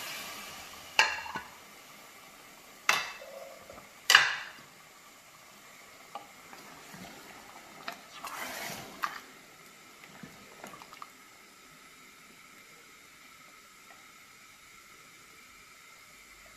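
Lamb chops and a watery tomato masala stirred with a wooden spoon in an aluminium pressure cooker, with soft scraping and sloshing. Three sharp knocks against the pot in the first four seconds are the loudest sounds.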